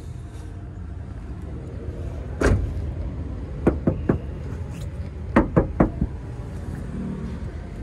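A car door shutting with a thud about two and a half seconds in, followed by two quick runs of three sharp knocks, over a steady low rumble.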